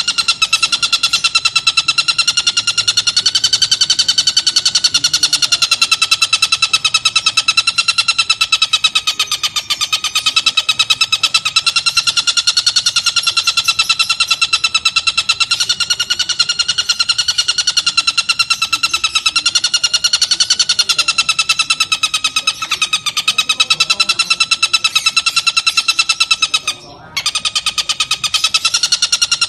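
Oriental dollarbird calling: a fast, steady-pitched rattling chatter that runs on without pause, broken once by a short gap about 27 seconds in.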